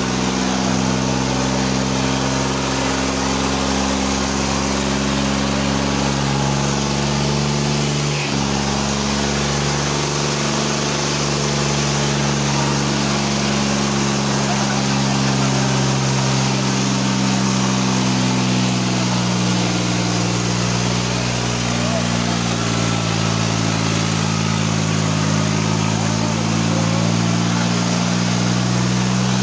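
Modified diesel tractor engine running hard and steadily under load, its pitch wavering slowly up and down, with people's voices over it.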